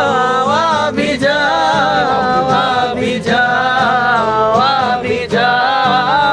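A man singing a slow melody in long held notes that bend in pitch, accompanying himself on a strummed Yamaha acoustic guitar.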